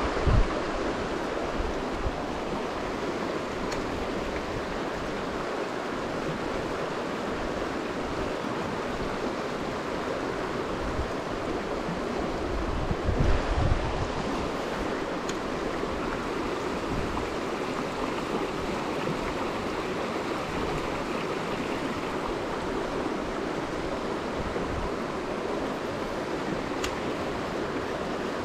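Shallow river running over stony riffles: a steady rush of water. About halfway through there is a brief low rumble on the microphone.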